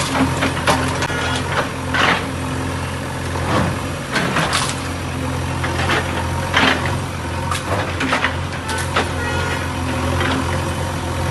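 Heavy diesel engine of a bulldozer running steadily, with irregular sharp knocks and clatters of the machine at work.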